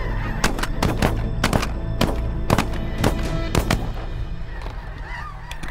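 A volley of shotgun fire from several hunters shooting together: about a dozen quick, overlapping shots over the first four seconds, then one last shot near the end.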